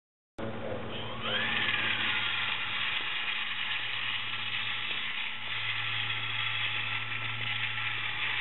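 Small electric motor and propeller of an RC foam autogyro whining up to speed about a second in, then running at a steady pitch.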